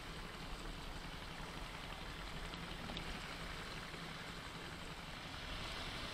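Steady wash of sea water along the side of a small fishing boat, with the low, even hum of the boat's engine underneath.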